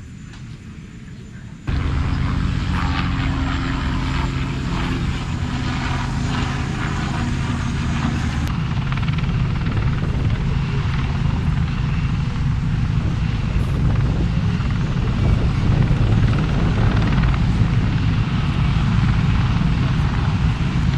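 Helicopter flying, a steady rotor and turbine sound that starts abruptly about two seconds in and grows a little louder.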